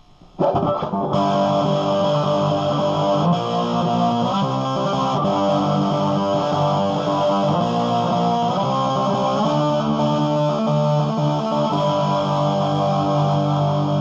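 Electric guitar played through a mid-1980s Marshall Lead 12 solid-state combo amp on the high input with the gain all the way up, giving heavily distorted chords. The chords start about half a second in, ring out and change every few seconds.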